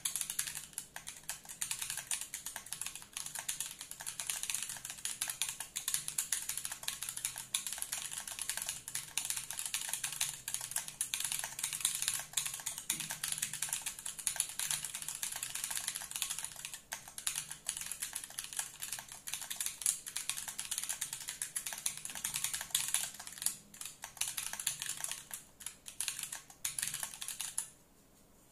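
Fast, continuous typing on a gasket-mounted Bear 65 V2 mechanical keyboard with Lila switches on an aluminium plate and GMK keycaps. The keystrokes stop suddenly near the end.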